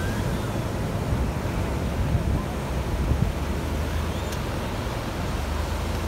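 Surf breaking and washing up the beach, with wind buffeting the microphone into a steady low rumble.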